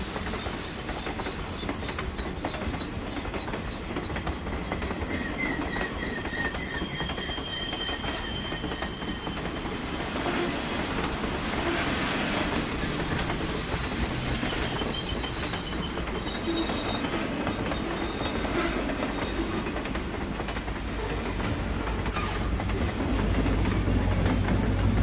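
A train passing close by: a steady rumble and clatter of wheels on rails, growing louder toward the end.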